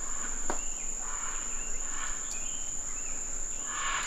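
Rainforest insects holding one steady, high-pitched buzz, with a few faint short calls behind it and a single click about half a second in.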